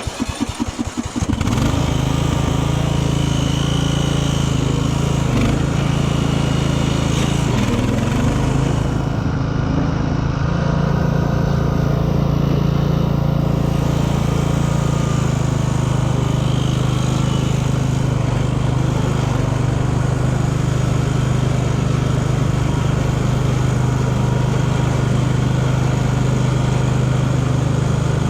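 Craftsman LT1000 lawn tractor's 17 hp Briggs & Stratton engine starting up, its pulses quickening and catching about a second in, then running steadily.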